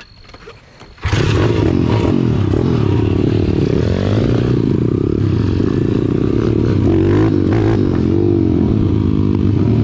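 Single-cylinder four-stroke pit bike engines running under way, starting loud and sudden about a second in. The engine pitch rises and falls as the riders work the throttle, with more than one engine heard at different revs.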